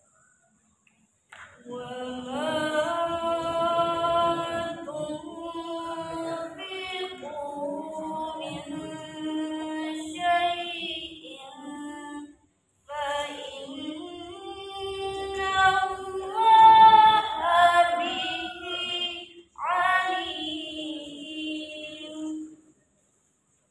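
A girl reciting the Qur'an from memory in a melodic chant, unaccompanied, in long held and gliding phrases. There are two short breaks for breath, about halfway through and again near the end.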